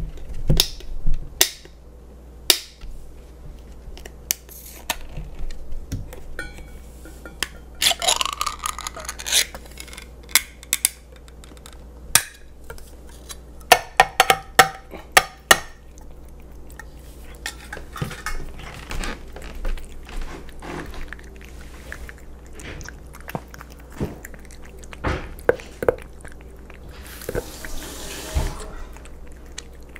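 A pull-tab can of wet cat food is opened, then tapped and scraped against a stainless steel bowl, giving a quick run of sharp metallic clinks, followed by a Bengal cat chewing the wet food in gravy.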